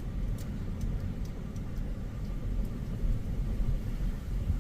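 Strong wind buffeting the phone's microphone, a steady low rumble.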